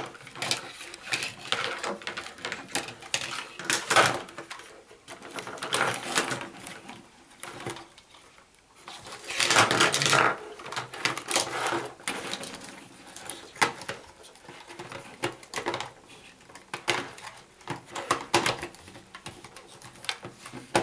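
Clicks, taps and rustles from white plastic telephone socket parts being handled, as the VDSL front plate is fitted back onto an NTE5 master socket, with the cables rubbing and shifting. The loudest cluster of clicks comes about ten seconds in.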